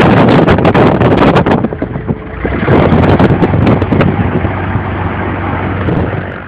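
Maule M7 amphibious seaplane's engine and propeller running loud, heard from the cockpit as the floats speed across the water, with wind buffeting the microphone.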